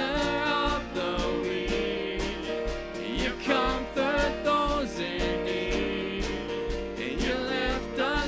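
A live worship band playing a song: a man and a woman singing over acoustic guitar, keyboard and drums, with a steady beat.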